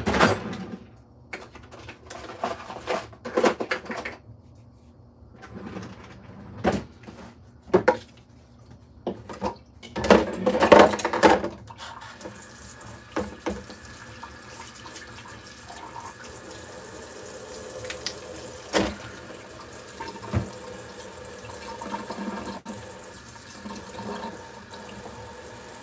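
Kitchen tap running steadily, starting about halfway through, after a stretch of scattered knocks and clatter with the loudest burst just before the water starts.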